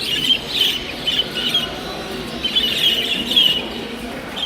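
Caged finches chirping: clusters of short, high calls from several birds at once, over a low steady hall murmur.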